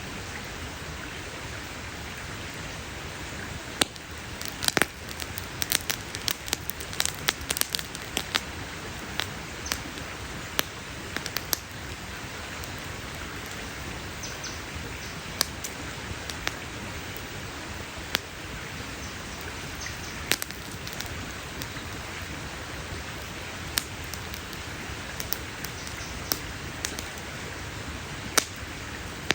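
Campfire crackling: sharp pops and snaps over a steady hiss, in a dense run from about four to twelve seconds in, then scattered single pops.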